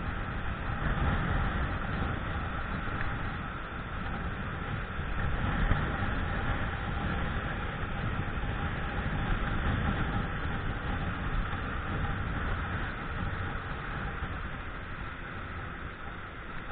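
Yamaha Jupiter Z underbone motorcycle on the move: steady engine and road noise, with wind rumbling on the camera microphone.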